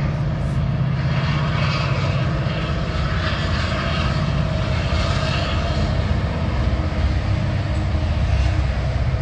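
Diesel locomotive engine running steadily, a loud, even low drone.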